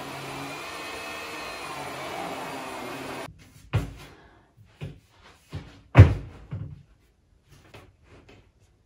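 Bagless upright vacuum cleaner running steadily on carpet, stopping abruptly about a third of the way in. Then a series of knocks and thuds from particleboard wardrobe panels being handled and set against each other, the loudest about two-thirds of the way in, followed by a few faint taps.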